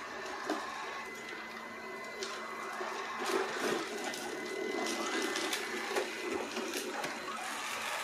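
Robomann 361 robot vacuum running: a steady high whine over a lower motor hum, with scattered clicks and ticks as it moves.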